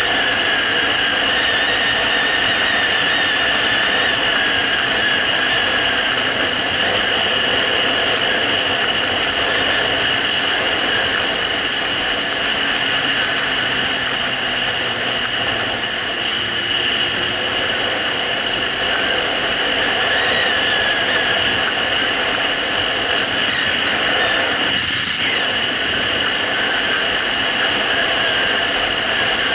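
Suzuki GSR750's inline-four engine running at a steady cruise while the bike is ridden, mixed with a steady rush of wind.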